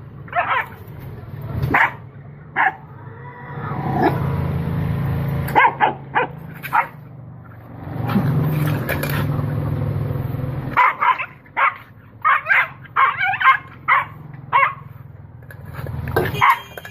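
A dog barking in short, separate barks, with a quick run of barks about two-thirds of the way through. A steady low hum runs underneath.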